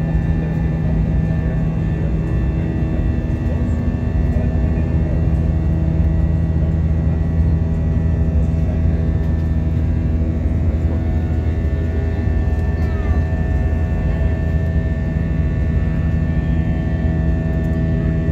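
Steady drone of an airliner's jet engines heard inside the cabin during the climb after takeoff: a deep, even hum with several steady tones running through it.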